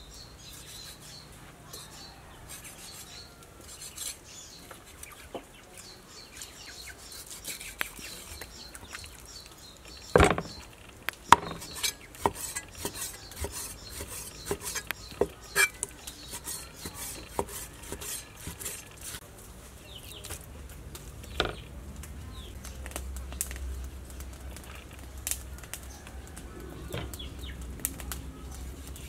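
Cleaver cutting raw pork on a thick wooden chopping block: irregular knocks and taps of the blade on the board, the hardest strokes about a third of the way through.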